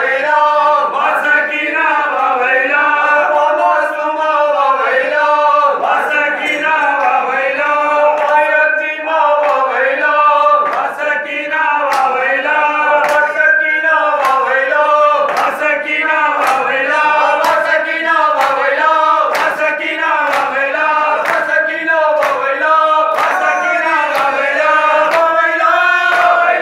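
Group of men chanting a noha, a Shia lament, in unison, led by one voice on a microphone, with a steady beat of hands slapping on chests (matam) keeping time.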